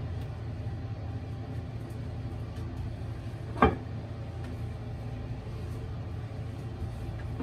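Steady low rumble while a porcelain toilet is wiped down with disinfecting wipes; one sharp knock about three and a half seconds in.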